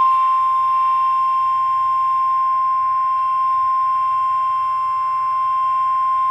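NOAA Weather Radio warning alarm tone: a single steady, loud 1050 Hz tone from a weather radio receiver, the attention signal that announces a severe thunderstorm warning about to be read.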